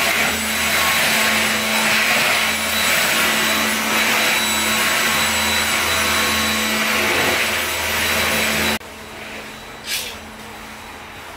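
Cordless stick vacuum cleaner running steadily with a motor hum and a high whine as it is pushed over a wooden floor. It stops abruptly about nine seconds in, and a short swish follows a second later.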